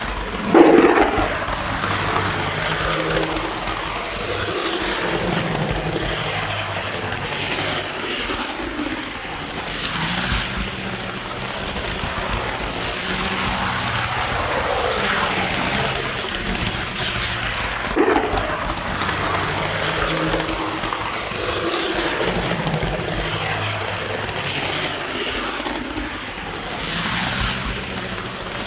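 Model train running along the track, heard from a camera riding on a flatcar behind the diesel locomotive: a steady rumble of wheels on the rails and the locomotive's motor, with two louder knocks, one just after the start and one about eighteen seconds in.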